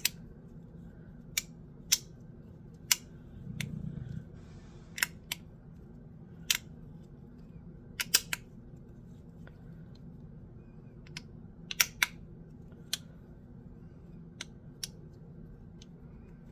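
Magnetic bean slider fidget being slid back and forth, its halves snapping into their magnetic click positions: irregular sharp clicks, some in quick pairs or threes, with a brief rustle of handling about four seconds in.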